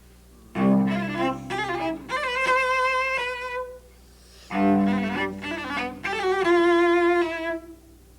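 Solo cello playing two short phrases with a brief pause between them, demonstrating a trill played as even quintuplets.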